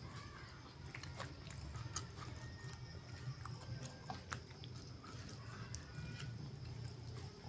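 Close-up chewing and biting of chicken liver and gizzard, with irregular wet mouth clicks and smacks over a low steady hum.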